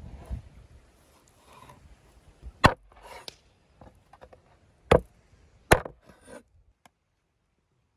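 Large butcher's knife cutting a rack of lamb into chops on a wooden cutting board: the blade scraping and rubbing through the meat, with three sharp chops of the blade striking the board, the last two close together.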